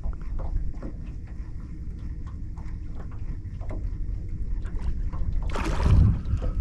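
Steady low rumble of wind and water around a small boat, with scattered small knocks. About five and a half seconds in comes one sudden loud splash, a big mullet breaking the surface.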